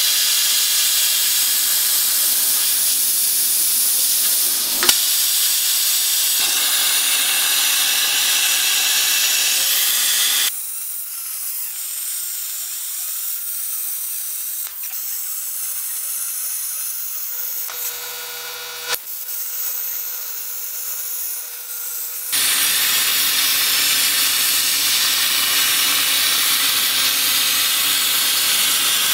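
CNC plasma cutter torch cutting 10 mm steel plate: a loud, steady hiss. Partway through it drops to a quieter hiss for about twelve seconds, with a short buzzing tone in that stretch, then the full cutting hiss comes back.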